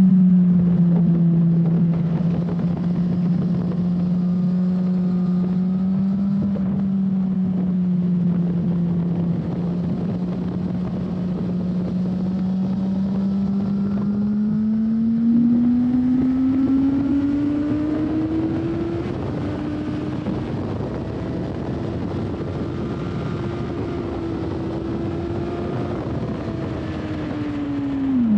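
2007 Suzuki GSX-R 1000's inline-four engine heard from on board, with wind rushing over the microphone. The engine note holds steady, climbs about halfway through as the bike accelerates, dips once, holds higher, then falls near the end.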